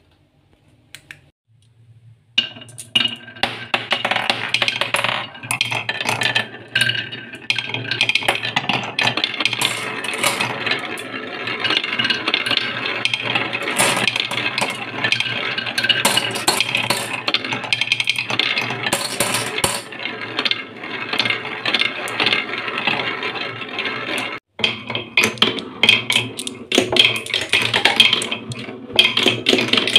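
Glass marbles rolling and clattering down a wooden marble run, many at once: a dense, continuous rattle full of small clicks and knocks as they hit the wooden blocks and each other, and whirl around a wooden funnel bowl. It starts about two seconds in.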